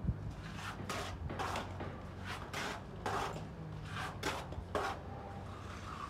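Plasterer's trowel working cement mortar: a string of short scraping swishes, about two a second, as mortar is scooped from the bucket and worked onto the wall.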